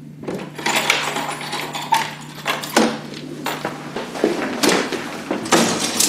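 Crockery and cutlery clattering in a quick run of sharp knocks and clinks as a dishwasher is unloaded, its wire rack being pulled out.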